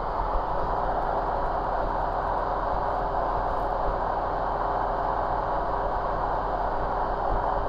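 Steady drone of a light aircraft's piston engine, propeller and rushing air inside the cockpit in flight, with a faint steady hum running through it.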